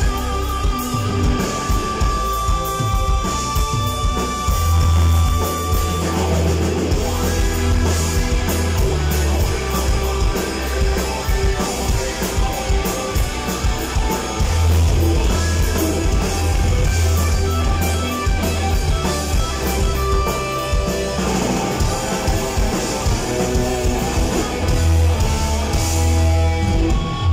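Live rock band playing loudly: electric guitar, drum kit and keyboards.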